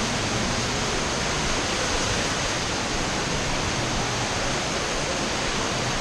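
Indoor water park ambience: a steady rush of running water that never lets up.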